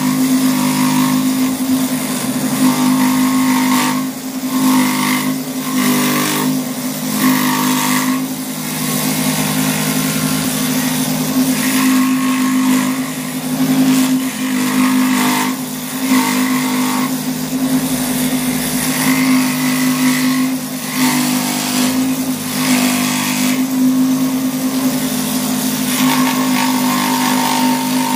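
Scroll saw running with a steady hum, its blade cutting a curved line through a board of mulberry wood; the higher cutting noise swells and fades every second or two as the wood is fed and turned.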